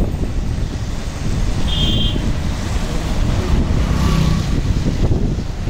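Wind buffeting the microphone of a moving motorbike, over a steady rumble of traffic, with a brief high beep about two seconds in.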